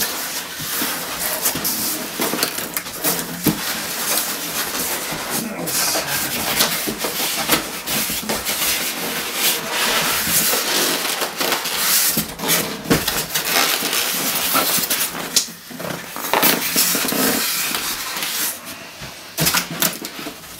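Cardboard box and polystyrene foam packing rubbing, scraping and creaking as a boxed tower server is worked out of its carton, with many small crackles and knocks.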